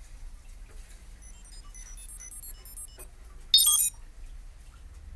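Sparse high electronic beeps and plinking notes, then about three and a half seconds in a loud, brief electronic chime of falling tones.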